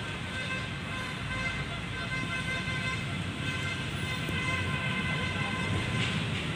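Steady outdoor background rumble like distant road traffic, with a faint, steady high-pitched whine over it.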